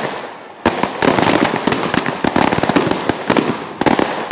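Fireworks: a rapid, dense run of firecracker pops and bangs, crackling without a break from about half a second in, with a few louder bangs near the end.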